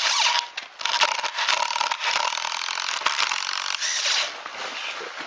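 Stainless steel decking screw being power-driven into hardwood with no pilot hole, grinding and squealing through the wood under the driver's motor. It pauses briefly just after the start and stops about four seconds in.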